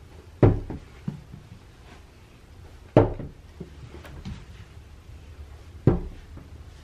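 Three dull knocks, about three seconds apart, each with a short ringing tail.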